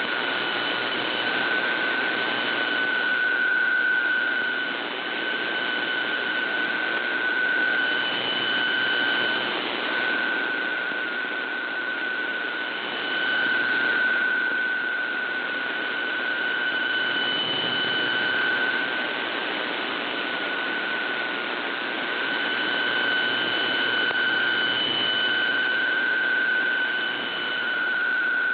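VOA Radiogram PSK125R digital text signal on shortwave, heard through an AM receiver as a steady mid-pitched tone over a bed of static hiss. The tone dips out briefly every few seconds as the marginal signal fades, and a fainter, higher tone comes and goes with it.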